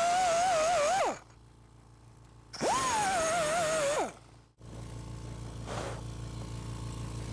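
Air-powered die grinder with a rotary file cutting inside a steel ring: a high whine that wavers as the file bites. It falls away about a second in, spins up again after a short pause, and winds down a second and a half later. A quieter low steady hum follows.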